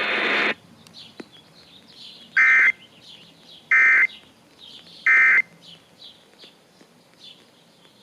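Emergency Alert System End of Message code: three short bursts of warbling digital data tones, about a second and a half apart, that close a Required Monthly Test broadcast on radio. A burst of noise cuts off half a second in, before the first data burst.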